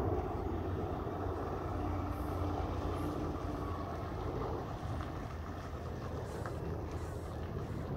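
Low, steady rumble of a truck driving away down the road, easing off a little about halfway through.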